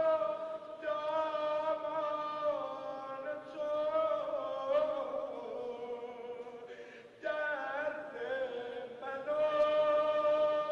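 A man chanting a devotional song in long, held notes that slide between pitches, pausing briefly about seven seconds in before going on.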